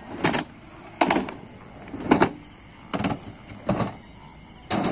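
Skateboard on concrete: a series of about six sharp clacks, roughly one a second.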